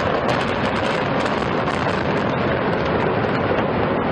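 Steady, loud rumble of a concrete high-rise collapsing in a controlled explosive demolition, with a few sharp cracks from the charges and breaking structure in the first second and a half.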